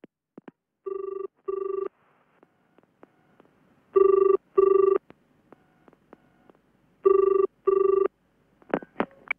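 Telephone ringing in the British double-ring pattern: three pairs of short, steady rings, the first pair quieter, then a few short clicks near the end as the call is picked up.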